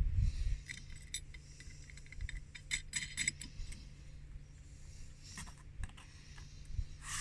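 Small steel lock washers and hex nuts clinking and clicking lightly as they are put on by hand onto bolts through a metal bracket, in scattered taps with a low hum underneath.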